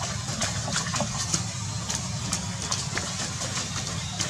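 Water splashing as young monkeys run and chase through a shallow puddle: a quick scatter of short, sharp splashes over a steady low hum.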